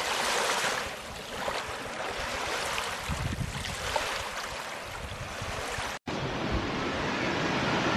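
Ocean surf washing on the shore, rising and falling in slow swells, with low wind rumble on the microphone. The sound cuts out for an instant about six seconds in.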